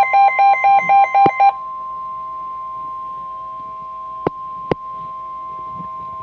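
Weather-radio warning alarm tone: a steady, loud single tone of about 1050 Hz, the signal that a warning message follows. For about the first second and a half, a separate beep pulses over it about three times a second. A few sharp clicks come later.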